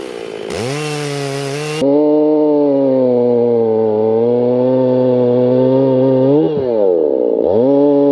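Husqvarna 55 two-stroke chainsaw running at high revs. Its pitch dips and climbs back twice as the throttle is eased off and opened again, once near the start and once near the end. In between it holds a steady high pitch with a slight sag.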